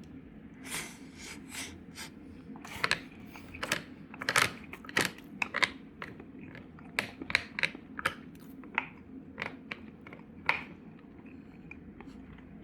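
Chopsticks clicking and tapping against tableware while eating, irregular light taps of varying loudness, over a steady low hum of the room.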